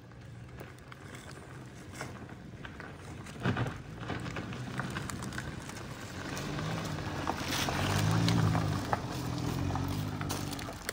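Car engine labouring up a steep, rough, stony dirt road, heard from inside the cabin, with scattered knocks and rattles as the tyres and body go over stones. The engine grows louder in the second half.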